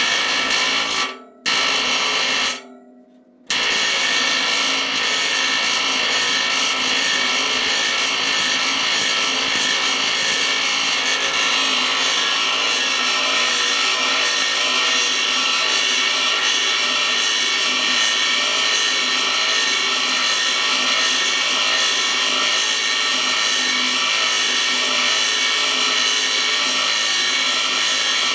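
Small pneumatic air hammer driving a beading tool with a turned-down shank, hammering over the end of a new 1.5-inch steel boiler tube to bead it against the tube sheet. It runs in a short burst, stops for about a second, then runs without a break from about three and a half seconds in.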